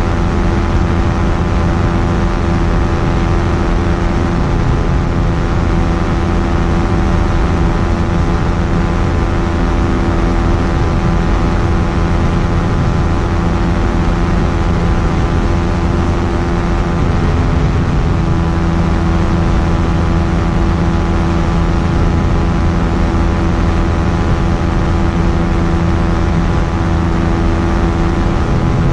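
Quicksilver Sport 2S ultralight aircraft's engine and propeller running at a steady speed, a loud, constant drone that holds one pitch throughout.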